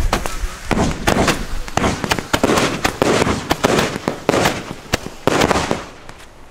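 Several Roman candles fired together, shooting coloured stars with a dense, irregular string of sharp pops over a hiss, thinning out toward the end.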